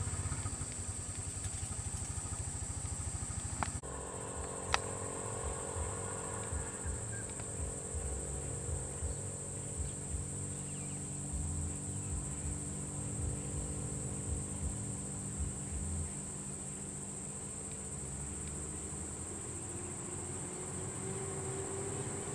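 Steady high-pitched insect drone over the low, uneven running of idling vehicle engines. The engine sound changes abruptly about four seconds in, and near the end an engine note slowly rises.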